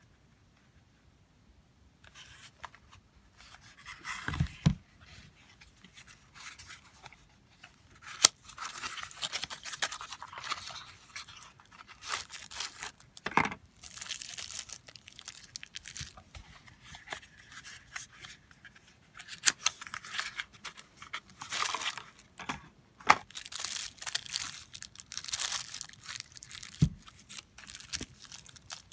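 Small paper boxes opened by hand and folding knives in thin plastic bags handled, starting about two seconds in: irregular plastic crinkling and rustling with scattered sharp clicks and taps.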